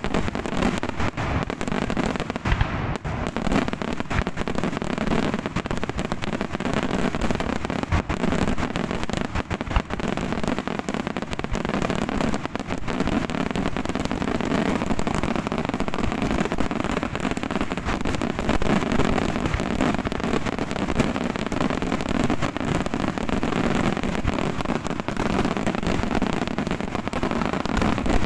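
Daytime fireworks barrage: a dense, unbroken rattle of bursting shells and firecracker bangs, with a few louder reports standing out.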